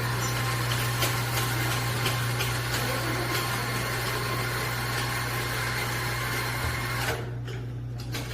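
Coffee equipment running with a steady low motor hum and a rushing hiss over it. The hiss stops about seven seconds in while the hum carries on.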